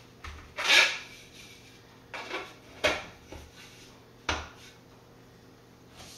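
Hard plastic knocks and scraping as a 3D-printed lens hood is handled and fitted onto the front of a 400mm f/2.8 telephoto lens. There is a loud knock under a second in, then sharp clicks about three and a bit over four seconds in as the hood's bayonet mount is seated and turned.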